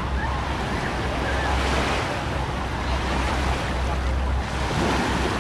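Small waves washing up on a sandy shore, surging and easing a few times, over a steady low rumble of wind on the microphone.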